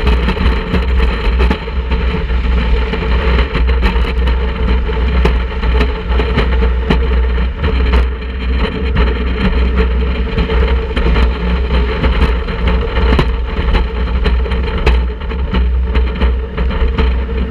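Wooden roller coaster train running at speed along its track, with a continuous heavy rumble and many quick clatters and knocks from the wheels over the rail joints, plus wind buffeting the front-mounted microphone.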